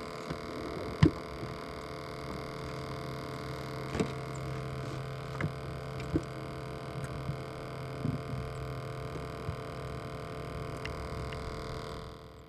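A small electric motor on the boat hums steadily with several pitched tones and cuts off near the end. A sharp knock comes about a second in, with a few softer knocks and clicks from handling gear on the aluminium boat.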